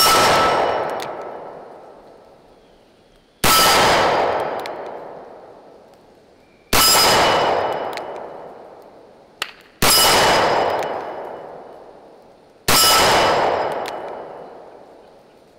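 Five shots from a Smith & Wesson Model 610 10mm revolver, fired slowly at about three-second intervals. Each sharp report rings on and dies away over two to three seconds.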